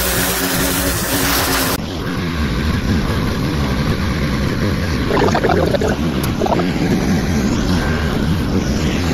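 Gas-engine pressure washer running, its spray hissing hard against a truck's camper shell. About two seconds in, the sound cuts to a steady low rumble with wind on the microphone and light rubbing of a wash mitt on the shell.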